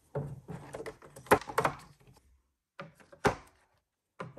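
Wooden-mounted rubber stamps being handled and set down in a clear plastic storage box: a few light wooden knocks, the sharpest about a second in and again past the three-second mark, between softer handling rustles.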